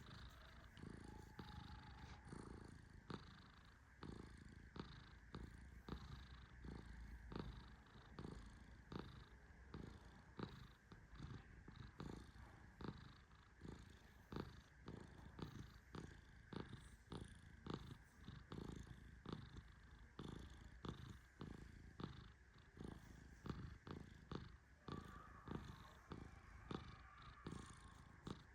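Persian cat purring softly in a steady, pulsing rhythm.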